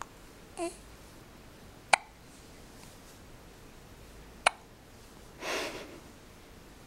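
A baby hiccupping: two sharp, sudden hiccups about two and a half seconds apart. A short vocal squeak comes before the first, and a breathy sound follows the second.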